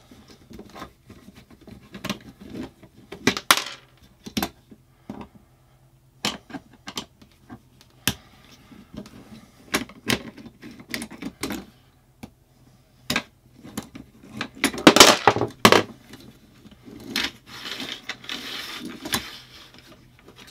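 Small scattered clicks and ticks of a metal screwdriver working the screws of a plastic bracket set in a metal shower-curtain track. A louder clatter of handled parts comes about fifteen seconds in, followed by a few seconds of scraping.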